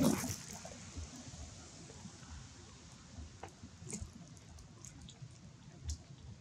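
Quiet background with a few faint, sharp ticks scattered through it; a louder sound cuts off right at the start.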